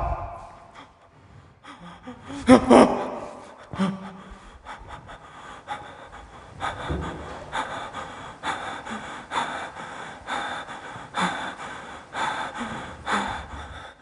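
A man's heavy, gasping breaths, quickening into rapid in-and-out breathing at about two breaths a second, with a louder gasp about two and a half seconds in.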